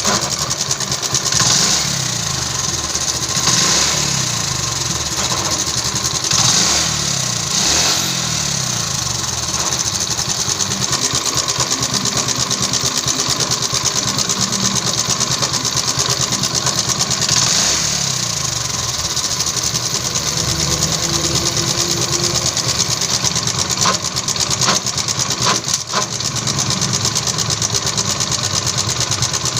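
TVS XL100 Heavy Duty's single-cylinder four-stroke engine running, revved up several times, with a clutch noise over it. The clutch has been run with no oil, so the clutch shoe and bell are rubbing together. A few sharp clicks come near the end.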